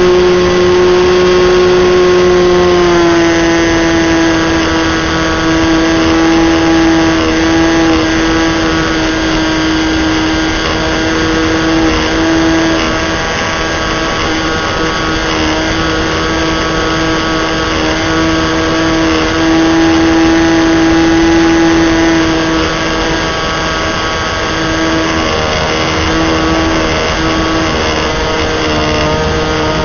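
Small model-airplane engine of an RC Calmato Sports 40, heard from on board in flight, running continuously at high throttle over wind rush. Its pitch drops a little about three seconds in, wavers, and sags again near the end as the throttle is eased.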